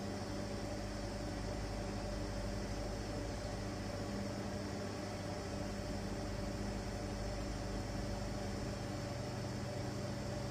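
Vacuum pump running steadily on a vacuum-gauge calibration rig as the chamber pumps down: an even mechanical hum with a constant low drone and a steady mid-pitched tone over a soft hiss.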